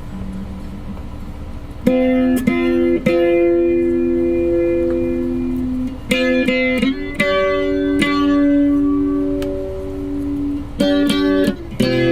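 Squier Bullet Stratocaster with EMG SL20 active pickups, played through an amplifier on a clean tone. About two seconds in, chords start being struck and left to ring, changing several times.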